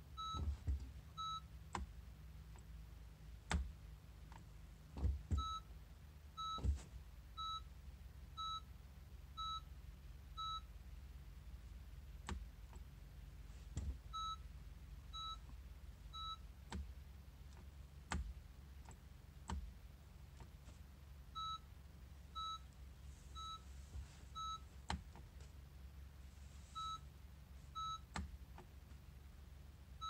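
2015 Honda Fit's warning chime beeping about once a second in short runs, with scattered clicks as the push-button start switch is pressed. The engine does not crank because the shift lever is out of Park.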